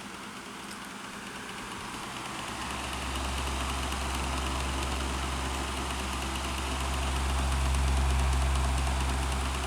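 Kuo Horng KH-203 12-inch table fan running on medium speed, its blades giving a steady rush of air. A low rumble comes in about two and a half seconds in, swells, and fades near the end.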